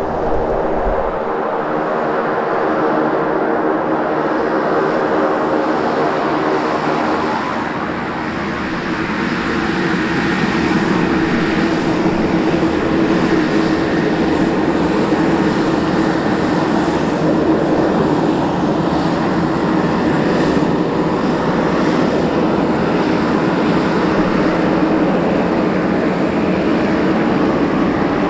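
Beechcraft Super King Air 350's twin turboprop engines and propellers at high power on departure: a steady droning hum with a pitched propeller tone, swelling louder about ten seconds in.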